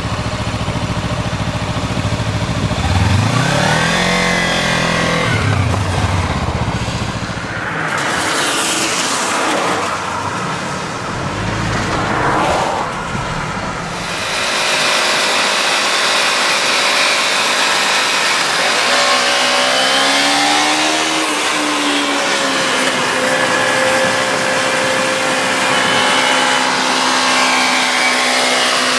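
Kawasaki Ninja 300's parallel-twin engine revved up and back down, followed by the hiss of traffic on a wet road. About two-thirds of the way through, an engine accelerates and then runs steadily.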